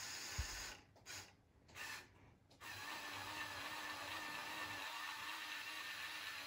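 Small electric motors of a remote-controlled building-brick forklift whirring as it works its mast and forks. They stop and start a few times in the first three seconds, then run steadily. A soft low thump comes about half a second in.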